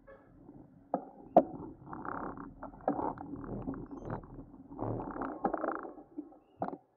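Muffled street and traffic noise heard from a moving bicycle, with a couple of sharp knocks about a second in.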